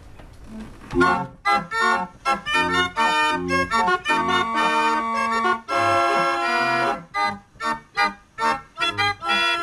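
Hand-cranked 38-key Gebrüder Bruder barrel organ from Waldkirch, built around 1880, starting a tune from its pinned barrel about a second in: short, detached pipe notes over a bass line, with a held chord about six seconds in.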